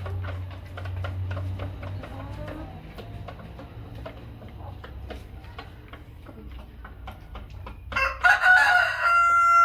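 Chickens clucking softly over a low steady hum and scattered light ticks, then about eight seconds in a Light Columbian Brahma rooster crows loudly for nearly two seconds.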